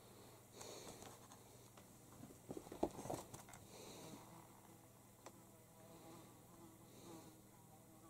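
Faint, on-and-off buzzing over a low steady hum. A cluster of sharp clicks and knocks about two and a half to three and a half seconds in is the loudest part.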